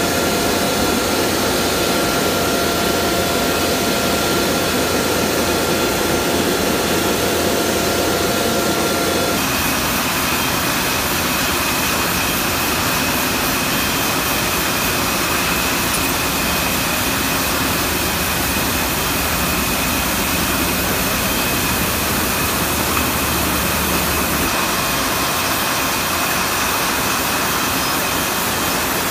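Beer bottling line running: a loud, steady machine din from the conveyors carrying glass bottles and crates. A steady whine through it gives way to a higher one about nine seconds in.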